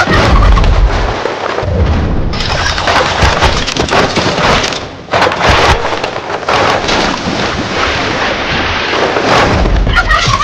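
Loud, dense rumbling sound-effects track with heavy low booms, one in the first second, another around two seconds in and a third near the end.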